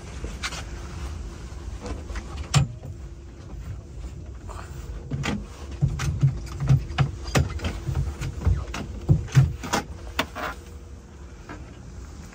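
A run of short knocks and taps on a boat, coming about two a second in the middle, over a steady low hum and rumble.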